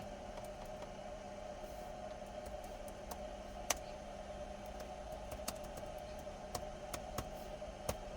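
Scattered computer keyboard key presses: a handful of separate, irregular clicks from about a third of the way in, the sharpest one first, over a steady background hum.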